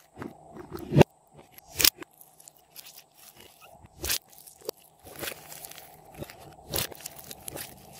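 Slime being squeezed and folded by hand in a glass dish: sticky, crackly squelching with several sharp pops as air pockets in the slime burst.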